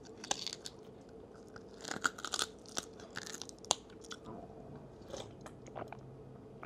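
Close-miked chewing and biting on a piece of chicken: scattered short crunchy, crackling bites and mouth sounds, busiest about two to four seconds in.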